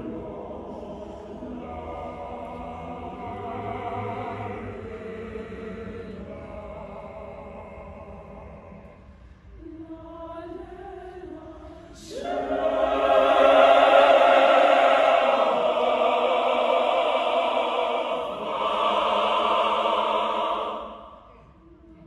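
Mixed choir of women's and men's voices singing a Zulu choral piece. The singing is soft for the first half and thins to a few lower voices, then the full choir comes in loudly about twelve seconds in, holds, and cuts off shortly before the end.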